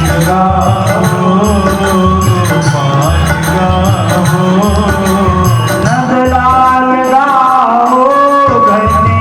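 Devotional bhajan music: a melody sung over a steady instrumental accompaniment, loud and continuous.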